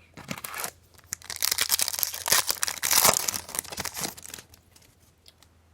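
A trading-card pack's wrapper being torn open and crinkled. It is a dense crackling that builds about a second in and stops at about four seconds.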